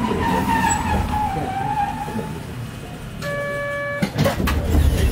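Hankai Tramway Mo 601-series tram slowing to a stop, a whine falling in pitch as it decelerates. About three seconds in a short steady electronic beep sounds, then a cluster of knocks and clatters as the car halts at the stop.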